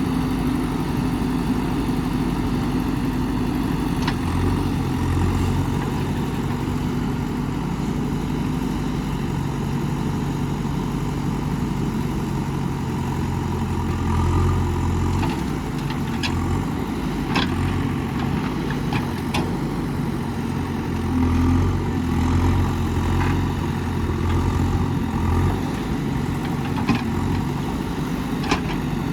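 Diesel engine of a digging machine (backhoe or mini excavator) running steadily while working, its drone swelling a little now and then, with a few sharp clicks and knocks over the engine in the second half.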